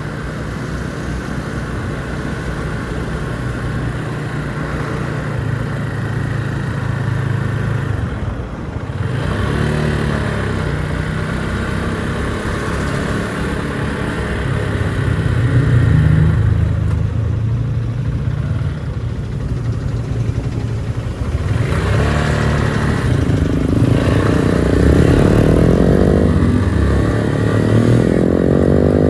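Motorcycle engine running on the move, speeding up twice, about a third of the way in and again past the two-thirds mark.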